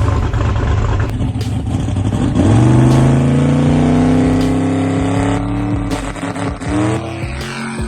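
Street-race car's engine running hard on a test pass. A roar at first, then a rising engine tone that holds steady, dips and climbs again near the end.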